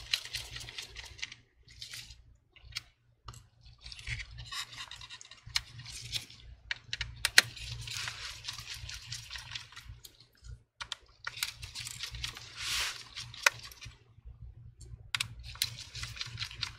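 Gloved hands working inside an opened MacBook Pro A1502: irregular bouts of rubbing and rustling, broken by small sharp clicks and taps from parts and connectors, the sharpest about seven seconds in.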